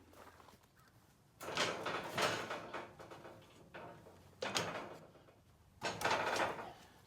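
Three rough sliding scrapes, each about a second long, of wooden cedar blocks being handled and shifted into place.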